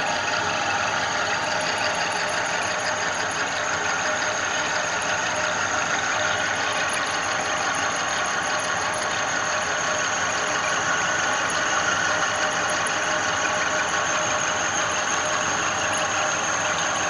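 Milling machine running with a helical end mill side-milling a metal workpiece: a steady cutting noise with a thin, constant whine.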